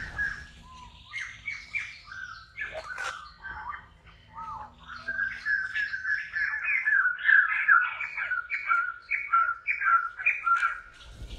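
Short, high-pitched squeaky animal calls, scattered at first and then coming in a quick run of a few calls a second from about halfway through.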